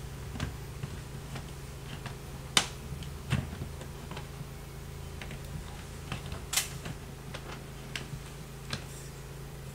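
Scattered light clicks and taps of a track-light head being fitted and locked into a ceiling track rail, with two sharper clicks about two and a half and six and a half seconds in, over a steady low hum.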